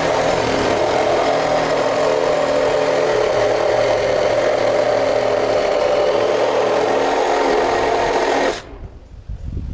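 Cordless drill running steadily at one speed, held overhead against a wooden rafter, then stopping abruptly about eight and a half seconds in.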